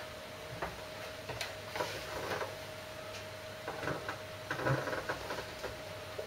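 Multimeter probe tips clicking and scratching against components and solder joints on a circuit board, in light, irregular taps with a busier patch about four seconds in. A faint steady whine sits underneath.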